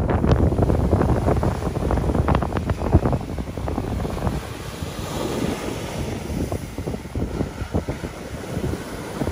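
Wind buffeting the microphone over ocean waves breaking and washing up on a sandy beach, with a rough crackling rumble throughout.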